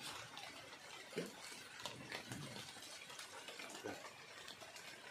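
Rain falling on a flooded river and the bankside foliage: a steady hiss with faint scattered drips, and a few short louder sounds about a second, two and a half and four seconds in.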